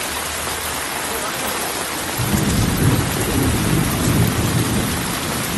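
Heavy monsoon rain falling steadily, with runoff pouring from roof edges onto the street. About two seconds in, a low rumble of thunder sets in and keeps going.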